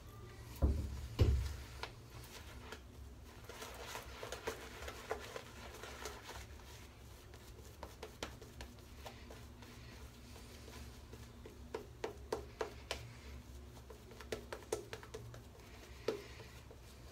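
Shaving brush being worked over a wet face to build shaving-cream lather: a steady scatter of faint, quick clicks and rustles from the bristles and cream. About a second in there are two dull thumps, the loudest sounds here.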